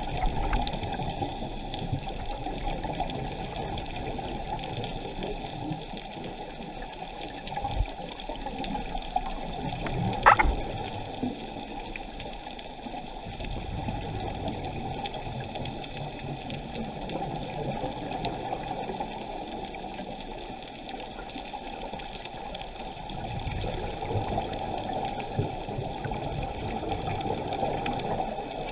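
Muffled underwater sound through a sealed camera housing: a steady rush of water with the bubbling of a scuba diver's exhaled regulator bubbles, swelling in surges, with one brief sharper burst about ten seconds in.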